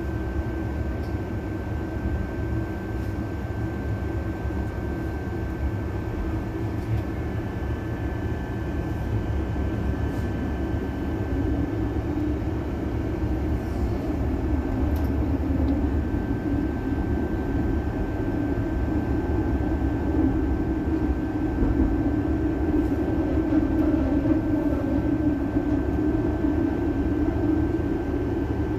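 Tram running along its tracks, heard from inside at the front: a steady low rumble with a thin, steady whine above it, growing louder in the second half.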